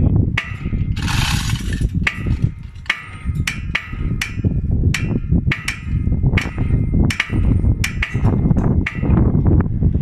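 Repeated sharp metal-on-metal clinks and taps, irregular at about two a second, each with a short ringing tone, from tools and hardware on a wellhead valve and its actuator rigging. A short hiss about a second in, and a steady low rumble underneath.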